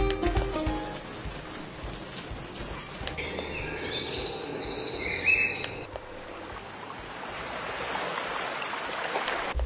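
Built-in white-noise sounds of a Young Living Feather the Owl diffuser cycled one after another: a steady rain hiss, then birdsong chirping about three seconds in, then ocean waves swelling from about six seconds in.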